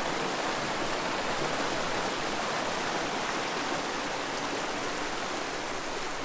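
Lake-outlet creek tumbling down a small cascade: a steady rush of water.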